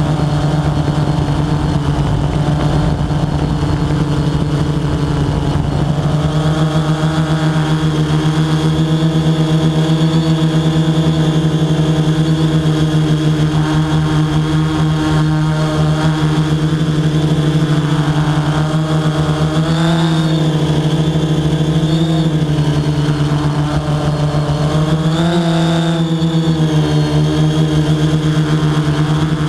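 Quadcopter drone's propeller motors running with a steady, loud hum. The pitch shifts up and back down a few times as it climbs.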